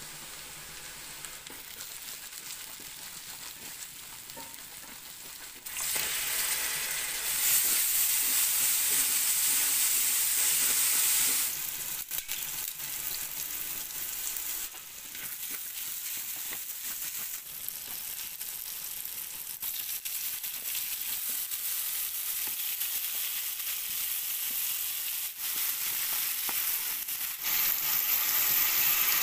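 Onion and spice masala frying in hot oil in a pan, sizzling steadily while it is stirred. The sizzle grows louder about six seconds in, and near the end there is a sudden louder hiss as a little water is poured over the chicken in the pan.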